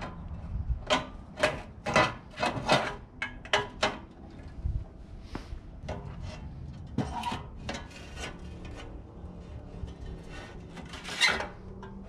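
Metal parts of a gas grill's side burner being unscrewed and pulled apart by hand: a run of short clanks, knocks and scrapes, thickest in the first few seconds and again around seven seconds in, with one louder scrape near the end.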